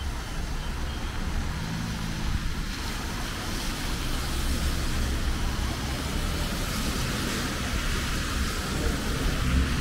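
Cars driving past on a rain-soaked street, tyres hissing on the wet road, over the steady noise of heavy rain, with a low rumble underneath.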